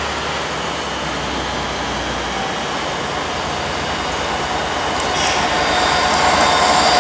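Diesel locomotive of West Coast Railways approaching along the line, its engine noise growing louder from about five seconds in, with a steady whine coming up as it nears.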